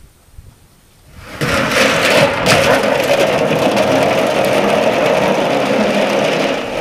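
Metal drum rolled off its platform and down a metal ladder-ramp onto the ground. It makes a loud, continuous clattering rumble that starts about a second in and lasts about five seconds.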